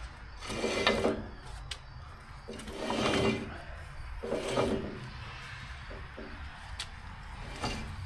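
Ditch Witch 1820 trencher's carbide-toothed digging chain rattling and clanking round its boom in about four short bursts as it is turned over. The chain has tight spots.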